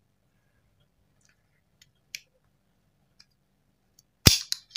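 Metal outer barrel and hop-up chamber block of a KJ Works KP02 Sig Sauer P229 airsoft pistol being handled: a few faint ticks, then one sharp metallic click with a couple of smaller clicks just after it, near the end.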